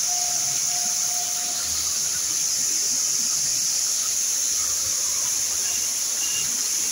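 Fountain water jets spraying and falling: a steady high hiss of spray.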